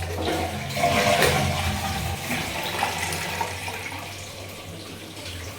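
Toilet flushing: a rush of water that swells about a second in, then fades as the cistern drains and refills.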